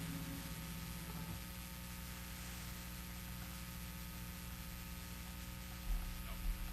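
Steady hiss and electrical hum from the band's amplified sound system. A low held note fades out about a second and a half in, and two soft low thumps come near the end.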